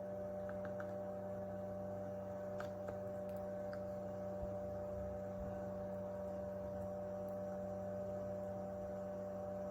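Fume extractor's small fan running with a steady hum, a few faint small ticks over it.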